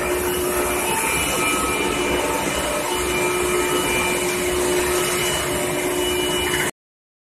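Steady industrial machine noise from induction surface-quenching equipment for pipe, a dense hiss with several steady hum tones over it; it cuts off suddenly near the end.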